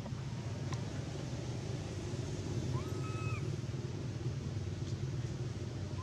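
A long-tailed macaque gives a single coo about halfway through: a clear, whistle-like note that rises at the start, holds level for about half a second, then drops. It sounds over a steady low rumble.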